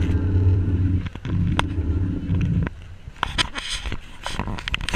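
Passenger boat's engine droning steadily, cutting out abruptly about two-thirds of the way through. After that come uneven gusts of wind and water noise.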